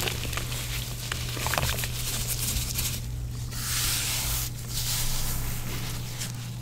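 Water-soaked gym chalk crumbling and crunching, with many small crackles and clicks; about halfway through, a sharp hiss lasting about a second.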